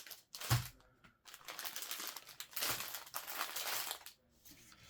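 Plastic-wrapped diamond painting canvas and kit packaging being handled, crinkling and rustling for a few seconds, with a soft thump about half a second in.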